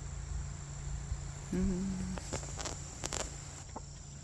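A chicken gives one short, low, even murmur about one and a half seconds in, followed by a few soft clicks, over a steady low hum and a faint high whine.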